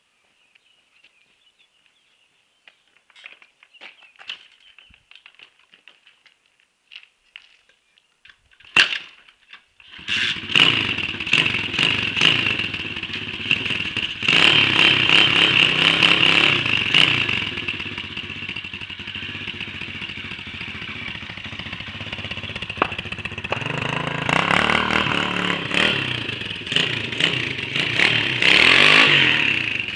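A 140 cc pit bike's single-cylinder four-stroke engine. After a few clicks and a sharp knock, it starts about ten seconds in, is revved in bursts, idles steadily for a while, and is revved again near the end as the bike pulls away.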